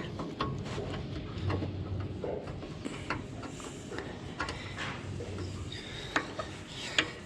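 Scattered sharp clicks and knocks of a grease gun being handled and worked on a skid steer's grease fittings, over a low steady hum.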